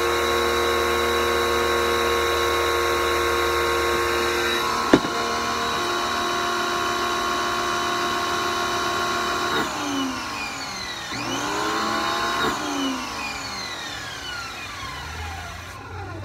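Electric pressure washer's motor and pump running with a steady hum, a sharp click about five seconds in. In the second half the pitch slides down and wavers while the sound fades, as the machine runs down.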